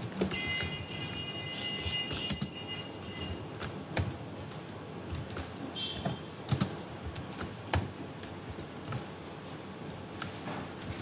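Computer keyboard keystrokes: irregular clicks of keys being pressed while text is edited, with a few louder key presses scattered through.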